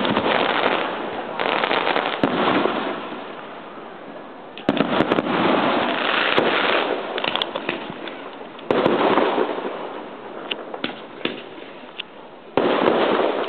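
Aerial firework shells bursting one after another, about five sudden bangs a few seconds apart, each dying away over a few seconds. Sharp crackles come between them.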